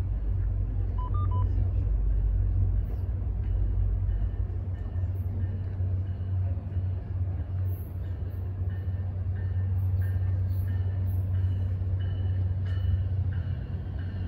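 Steady low rumble of an approaching diesel passenger train, still in the distance, with faint high dings repeating from about halfway through.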